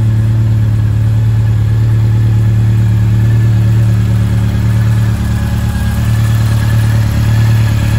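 Honda CB1100's inline-four motorcycle engine idling steadily, loud and close.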